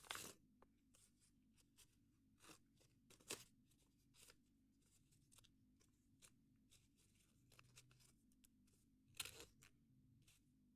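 Paper being handled: faint, scattered crinkles and rustles, with sharper crackles at the start, about three seconds in and again near the end.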